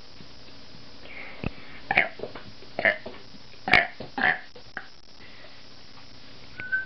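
A person burping on purpose in a quick string of short, loud burps, about six in three seconds.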